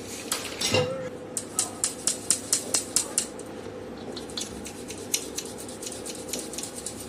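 Steel mesh sieve shaken and knocked against a steel bowl while sifting semolina: a quick run of sharp metal clinks, about four a second and loudest in the first three seconds, then lighter and more scattered.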